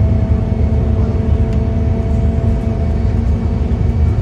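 Scania K230UB double-decker bus under way, heard from inside on the upper deck: a steady rumble of its rear-mounted engine and running gear, with a few steady hum tones over it.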